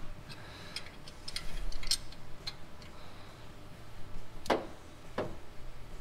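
Open-end wrench clicking against an exhaust header flange bolt as it is worked a little at a time, trying to snug up a bolt that is still loose. A few light metallic ticks, then two louder clicks near the end.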